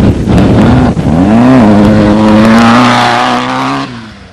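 Off-road desert race car's engine revving up with a rising pitch, dipping once, then rising again and holding a steady high pitch as the car accelerates away. It fades out near the end.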